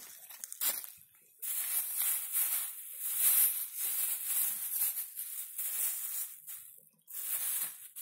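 Clear plastic bag crinkling and rustling as a hand handles it, in long stretches of crackle with a brief break near the end.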